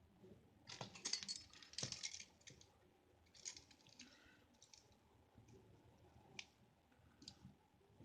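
Metal keys and a keyring clinking and clicking as a small multi-tool is worked onto the ring. A flurry of clinks in the first two seconds, then scattered faint single clicks.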